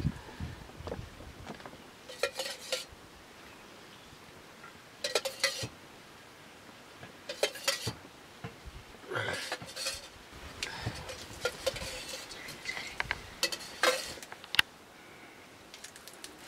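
Metal ladle clinking against a steel cup and the wok, in short groups of sharp ringing clinks every couple of seconds, busiest in the second half.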